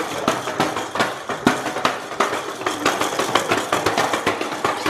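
Snow crunching underfoot: footsteps through deep, partly melting snow, a dense run of irregular crisp crunches.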